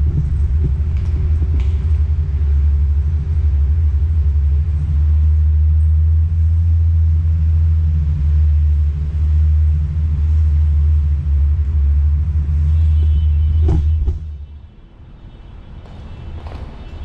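Power wheelchair driving across a concrete garage floor: a loud, steady low rumble that stops about 14 seconds in with a sharp click, leaving a much quieter background.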